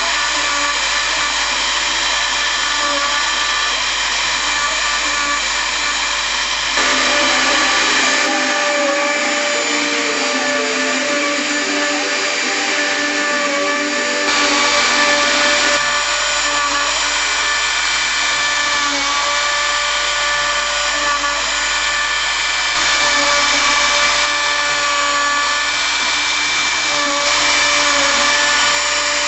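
Hobby CNC milling machine's spindle running and cutting, a steady high-pitched whine made of several tones, which shifts a little in loudness and tone a few times.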